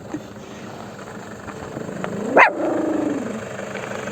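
A dog's voice: one yelp about two seconds in that rises sharply, then trails off into a falling whine.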